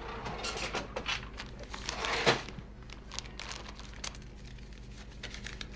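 Paper crinkling and rustling in irregular bursts of crackle, the loudest about two seconds in, over a faint steady low hum.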